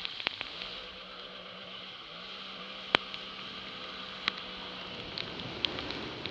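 Jet ski running at speed on a river: a steady engine tone under the hiss of spray and wake, with a few sharp ticks of water drops striking the camera.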